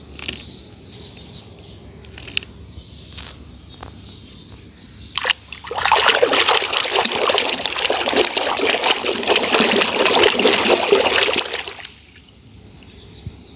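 A few light taps of plastic toy animals being handled in a plastic basket, then, about six seconds in, water sloshing and splashing loudly as toys are scrubbed by hand in soapy water, dying down about two seconds before the end.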